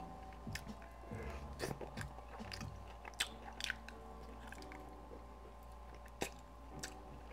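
Close-up chewing and biting on a glazed barbecue pork rib eaten off the bone, with irregular sharp mouth clicks and smacks.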